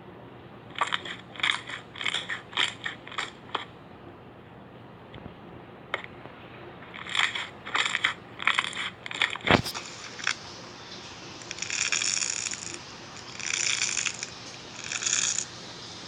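Slime being squeezed and pressed by hand, making two quick runs of short crackling pops. A single sharp click follows, then three longer squelching sounds near the end.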